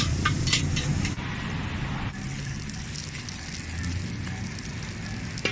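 Street traffic noise: vehicles running past as a steady low rumble, with a few sharp clicks in the first second and a slightly quieter stretch after that.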